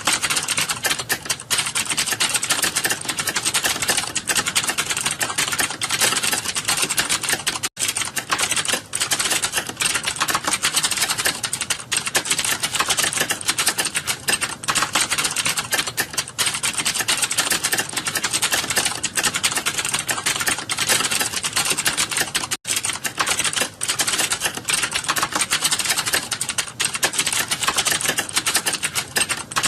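Fast, continuous typing on a computer keyboard during a timed typing test: rapid keystroke clicks with no let-up, broken only by two very short gaps.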